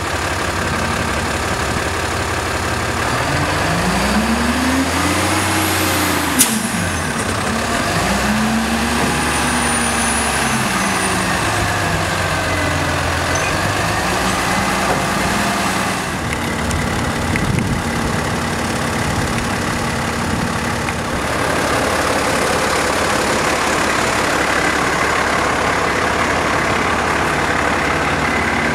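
2008 Peterbilt 340 dump truck's diesel engine running while its hydraulic hoist tips the dump body. The engine revs up and falls back twice in the first dozen seconds, with a sharp click about six seconds in, then runs steadily.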